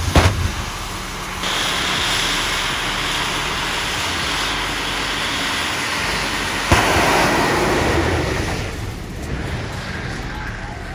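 Vehicle noise: a low pulsing engine rumble at the start, then a loud steady rushing noise that surges with a sharp jolt partway through and eases off near the end.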